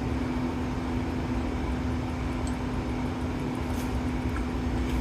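Steady machine hum with one constant low tone and a few fainter ones, unchanging throughout.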